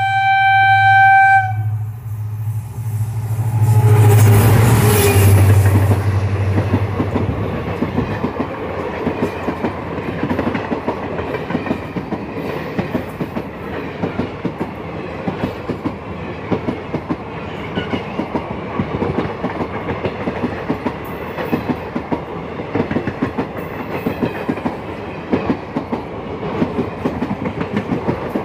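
Diesel locomotive's horn sounding one brief note at the start, then the locomotive's engine passing close, loudest about four to six seconds in. After that comes the steady rhythmic clickety-clack of a long rake of passenger coaches rolling past over the rail joints.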